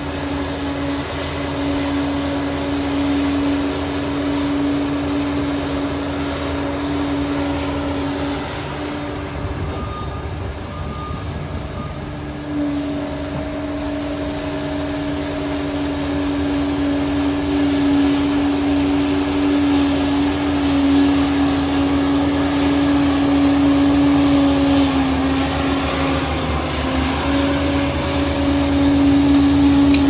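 Liebherr PR 746 crawler dozer working under load, its diesel engine running with a steady whine over it. The whine drops away for a few seconds about a third of the way in, then returns, and the machine grows louder toward the end as it comes closer.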